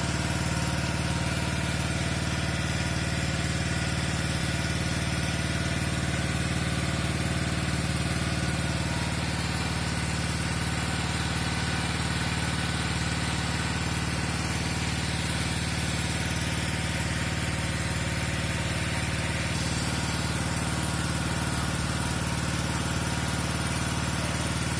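Small petrol-engined portable water pump running steadily, drawing water out of the excavated pool through its suction hose.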